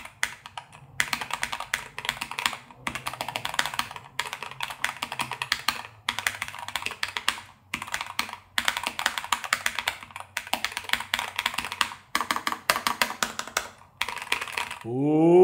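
Fast typing on a NuPhy Air60 V2 low-profile mechanical keyboard with Cowberry switches: rapid runs of key clacks lasting a second or two each, broken by short pauses.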